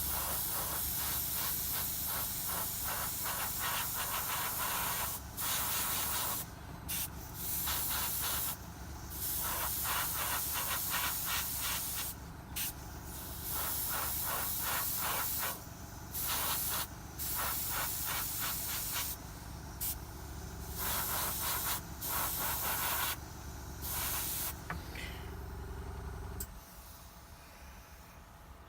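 Airbrush spraying thin acrylic paint, a steady air hiss that cuts off and starts again many times as the trigger is released and pressed between passes. A steady low hum runs underneath and stops near the end.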